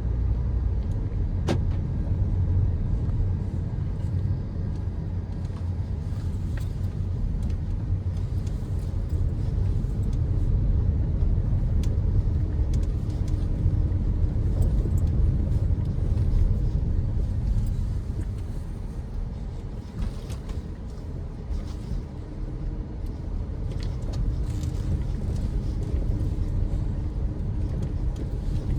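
Audi Q5 quattro on the move: a steady low rumble of engine and tyres, with scattered light knocks and a short lull about twenty seconds in.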